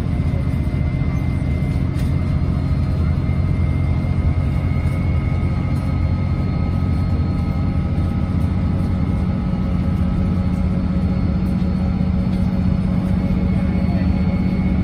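A Class 165 Networker Turbo diesel multiple unit on the move, heard from inside the passenger saloon: a steady, loud drone of its Perkins diesel engine and running gear with faint high whines above it. A low engine note grows stronger about ten seconds in.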